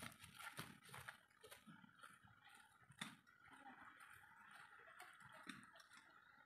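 Near silence, with a few faint scattered clicks and ticks over a faint steady hiss.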